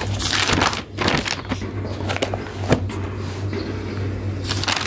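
Paper notebook pages being turned and handled, rustling in a few short bursts, over a steady low hum.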